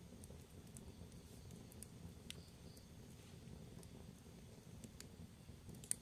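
Wood fire burning in a fireplace: a faint low rumble with scattered sharp crackles and pops from the burning logs, the loudest pop near the end.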